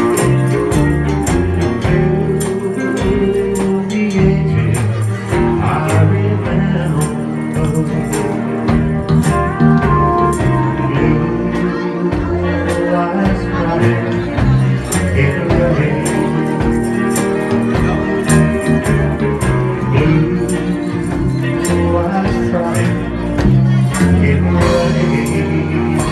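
Live band playing a slow country ballad: electric guitar and bass over a steady beat, with a man singing into a microphone.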